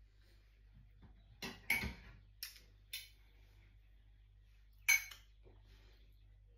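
Metal fork clinking and scraping against a ceramic plate while food is taken from it, in a handful of short, sharp clicks; the loudest comes near the end.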